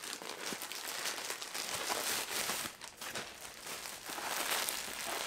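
Packaging crinkling and rustling as a mail-order parcel is opened and unwrapped by hand, an uneven run of small crackles with a short lull about three seconds in.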